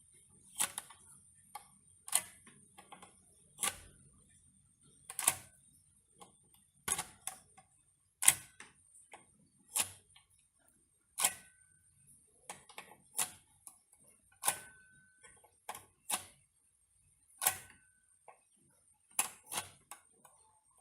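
Electrical plug pushed into and pulled out of a power socket again and again: sharp plastic-and-metal clicks roughly every one to one and a half seconds, some in quick pairs.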